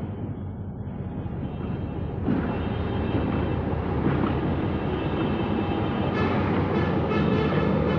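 Diesel locomotive engine running with a steady low drone, growing louder about two seconds in as the locomotive works closer.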